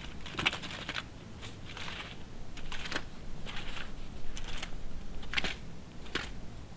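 A rake scraping across dry grass and gravelly ground in short, uneven strokes, about one or two a second.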